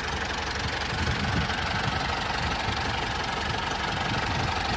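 Small engine of a DIY mini tractor running steadily at idle with a fast, even knock.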